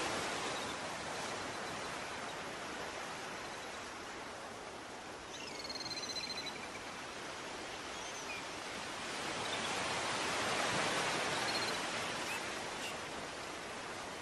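Steady rushing underwater water noise with faint high dolphin whistles: one set gliding up and down about five seconds in, and a few short whistles later.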